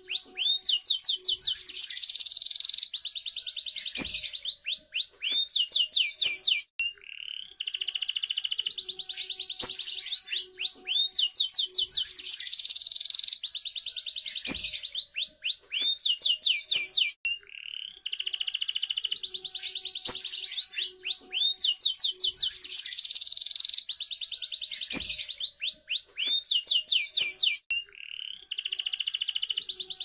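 Domestic canary singing a long, fast song of rolling trills and high whistled notes. There are brief pauses about every ten seconds, where the same sequence of phrases starts over.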